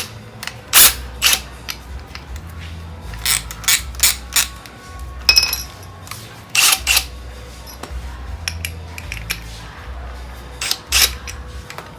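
Irregular clicks and clinks of small tools and parts being handled, over quiet background music with a low bass line.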